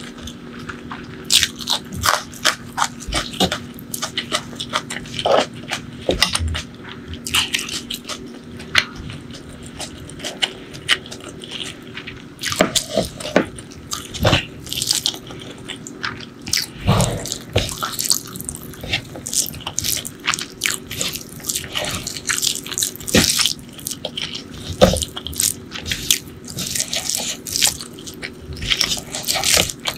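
Close-miked eating: irregular biting, chewing and wet mouth clicks, along with the squish of fingers mixing curry-soaked rice.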